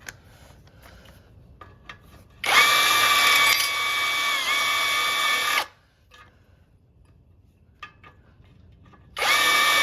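Power drill running in two bursts, about three seconds long and then again near the end, with a steady motor whine that dips briefly in pitch midway through the first run, as it backs out a tight bolt.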